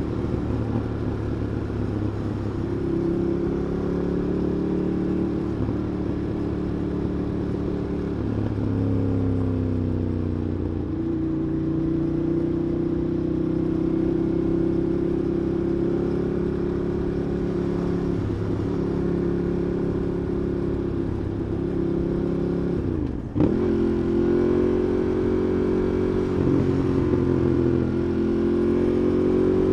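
Ducati Monster 821's 821 cc V-twin engine running under way, heard from a backpack-mounted recorder, its pitch rising and falling through several gear changes. About 23 seconds in the sound drops out for an instant and comes back with a sharp jump.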